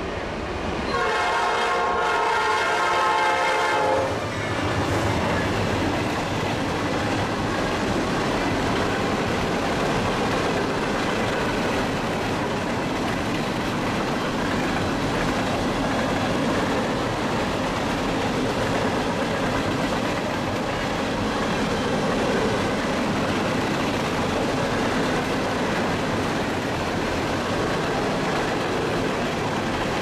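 Freight locomotive's horn sounds one blast of about three seconds, about a second in. After it comes the steady rumble and rattle of a long string of open hopper cars rolling past.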